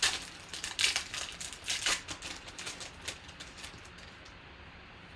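Trading cards and their pack wrapper being handled: a quick run of short rustles, crinkles and snaps as the cards are flipped through, dying away after about three and a half seconds.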